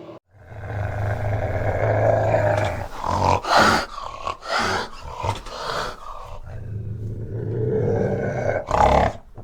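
An animal's low-pitched, rasping calls: a long drawn-out call, a run of short loud calls about three to six seconds in, then another long low call and a few short ones near the end.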